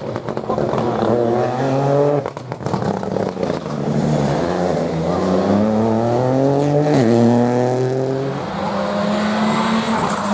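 Rally car engine pulling hard, its pitch climbing and then dropping sharply at each upshift, twice. A burst of cracks and pops sounds at the first lift, about two seconds in.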